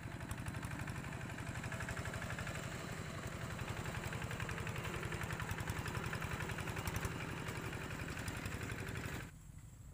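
A small engine running steadily with a rapid, even pulse, cut off suddenly about nine seconds in.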